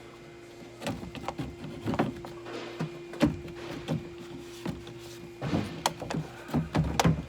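Irregular knocks, clicks and rattles of a car door's window glass and its guide being shifted by hand inside the bare door shell, with a steady faint hum through the middle.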